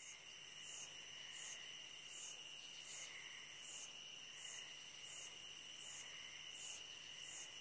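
Faint chorus of night insects: a steady high trill under a high chirp that repeats about every three-quarters of a second.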